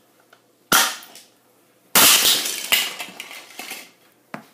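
A sneaker stomping on a cheap plastic G-scale toy locomotive: two sharp cracking impacts, about a second in and again about two seconds in. The second is followed by a clatter of breaking and scattering plastic pieces, and a smaller knock comes near the end.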